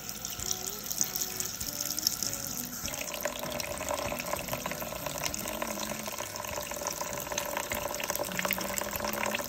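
Water from a kitchen tap running into a bowl of raw chicken halves as they are rinsed. The stream gets fuller and louder about three seconds in.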